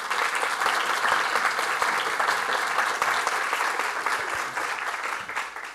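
Lecture audience applauding at the close of a talk, a dense clapping that fades away near the end.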